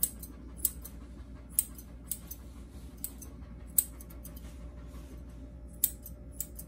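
Grooming scissors snipping through a toy poodle puppy's leg fur: about eight short, sharp snips at uneven intervals.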